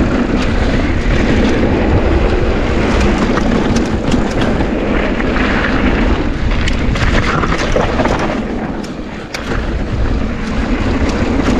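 Mountain bike riding fast down a dirt trail: wind buffets the camera microphone over the rumble of the tyres, and the bike rattles and clacks sharply over rough ground. The noise eases for a moment about nine seconds in.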